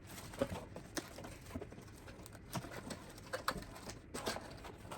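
Plastic packaging being handled and opened: irregular crinkles, clicks and short squeaks as the PC case's accessory pack of screws and a small plastic screw container is unwrapped.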